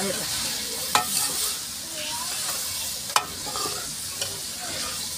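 Chicken and onion-tomato masala sizzling in an aluminium karahi while a metal ladle stirs it, scraping round the pan and knocking sharply against it twice. The masala is at the bhuna stage, being fried until well browned.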